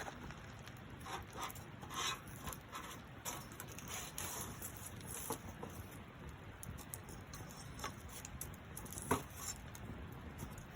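Wood fire crackling, with scattered irregular pops and one sharper pop about nine seconds in.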